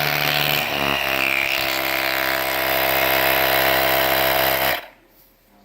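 Small electric air compressor built into a portable jump starter running steadily, its pitch shifting briefly about a second in, then cutting off suddenly near the end: the auto shut-off stopping the pump at the selected pressure.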